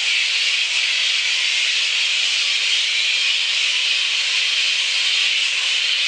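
Hundreds of bats, a flying-fox colony roosting in the tree canopy, calling all together as a dense, steady, high-pitched chorus without a break.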